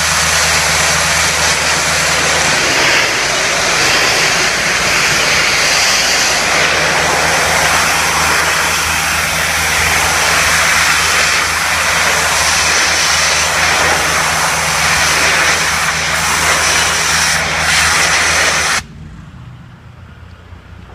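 Pressure washer blasting a high-pressure water jet onto brick: a loud, steady hiss over the steady drone of the machine's engine. The spray cuts off suddenly near the end, leaving the engine running.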